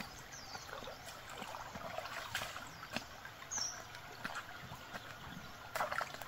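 Shallow stream trickling over stones, with footsteps splashing through the water now and then.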